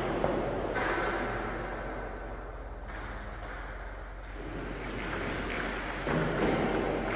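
Sports-hall ambience with a steady hum and a few sharp clicks of table tennis balls, the clearest about a second in, and a brief high squeak near the middle.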